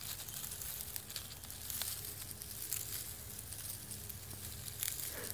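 Faint, irregular rustling and crackling of dry leaf litter as two milk snakes writhe and coil together over it.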